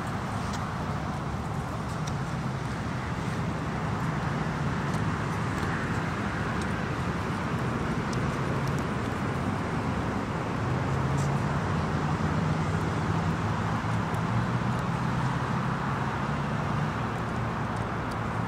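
Steady engine-like hum over a continuous rushing background noise. The hum grows louder from about ten seconds in until near the end.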